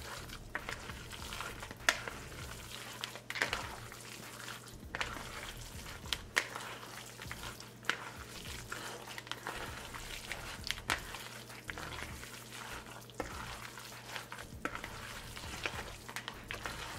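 Bare hands squishing and kneading broth-soaked turkey and cornbread dressing in a plastic mixing bowl: a wet squelching with irregular sharp little smacks.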